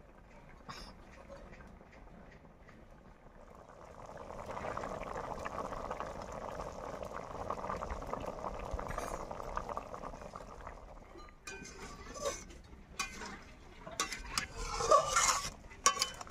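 Goat curry boiling hard in a kadai over a wood fire, a steady bubbling and hissing from about four seconds in. After about eleven seconds it gives way to a run of knocks and scrapes as a wooden spatula stirs the pieces against the metal pan.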